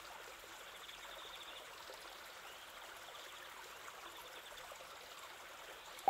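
Faint, steady running-water noise, like a gentle trickle or lapping, with an even hiss.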